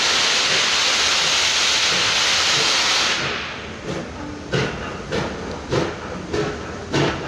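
NSWGR C38-class steam locomotive 3801 letting off a loud, steady hiss of steam that stops about three seconds in. Then the exhaust chuffs begin, evenly spaced a little over half a second apart, as the locomotive gets under way.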